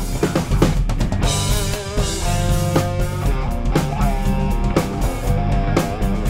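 A band jamming: a drum kit keeping a steady beat under guitars and a bass guitar.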